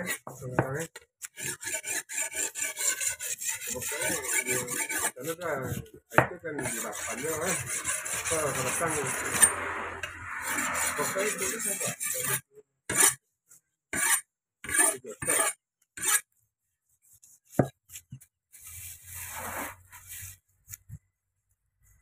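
A long knife blade scraping the scales off a parrotfish on a wooden chopping block, in repeated rasping strokes. The scraping runs almost unbroken for about twelve seconds, then comes as separate short strokes with pauses between them.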